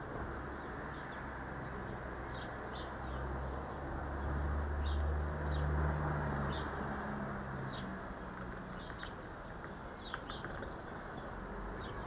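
Small garden birds chirping, with short high calls scattered throughout over a steady background hiss. A low hum swells and fades in the middle.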